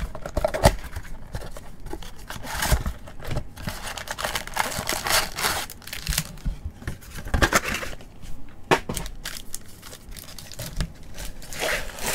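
Cardboard trading-card box being torn open and its plastic-wrapped card packs pulled out: irregular tearing, crinkling and rustling.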